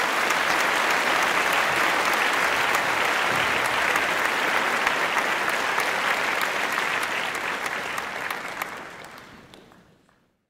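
Applause from an audience, a steady dense clatter of clapping that fades out over the last couple of seconds.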